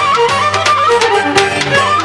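Lively folk-style dance music: a fast melody over a quick, steady beat.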